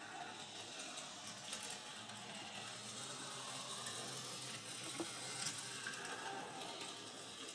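Z scale model locomotive on a Rokuhan shorty chassis running along the track: the faint, steady whirr of its tiny motor and wheels, with a few light clicks.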